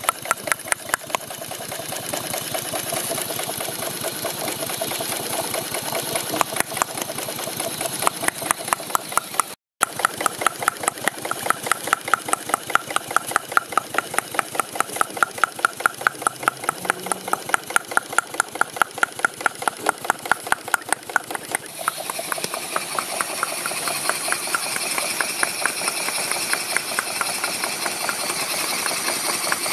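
Small experimental model steam engines by George Eli Whitney running fast on steam, giving a rapid, even clatter of strokes. A break about ten seconds in and a change about two-thirds of the way through mark a switch to another engine. That later engine is heard with more steam hiss.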